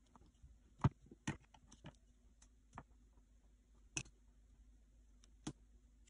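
Scattered light clicks and taps, about eight in all, as hands handle scissors and small pieces of polymer clay on a plastic cutting mat. The loudest come about a second in and again at four seconds.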